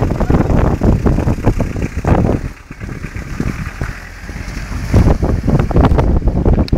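Wind buffeting the microphone, a loud irregular low rumble that eases off for a couple of seconds in the middle.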